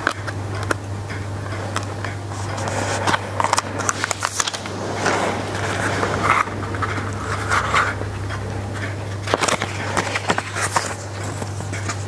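Paper leaflets and an instruction booklet being handled and flipped, with crinkling, scraping and small clicks of paper close to the microphone, over a steady low hum.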